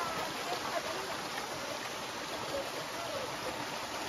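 Small mountain stream running down a rock face, a steady rush of water.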